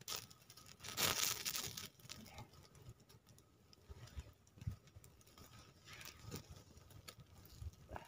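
Small campfire of dry sticks and twigs crackling with scattered pops, with a louder rustling burst about a second in.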